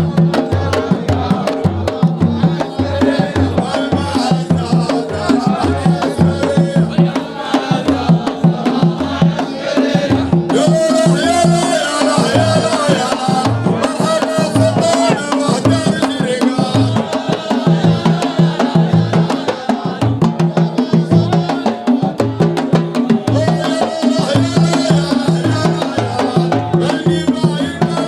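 Saudi folk wedding music: a dense, steady beat of hand drums with voices singing over it.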